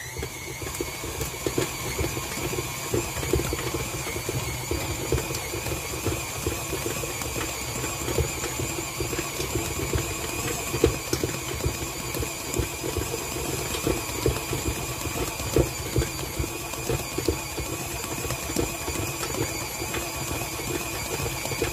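KitchenAid Artisan stand mixer running, its dough hook kneading stiff pizza dough, with a steady motor whine. Irregular knocking and rattling throughout as the laboring mixer rocks and bounces on the counter.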